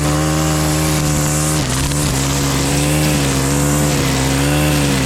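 A motor engine running steadily with a strong hiss of road or wind noise over it; its pitch drops slightly about one and a half seconds in.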